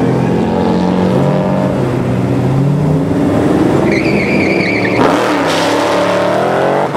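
Drag-racing cars' V8 engines, among them a 1993 Mustang LX Fox Body's Vortech-supercharged 347 cubic-inch V8, run steadily at the starting line. A high wavering whine comes in about four seconds in. About a second later the cars launch, and the engine note climbs as they accelerate away.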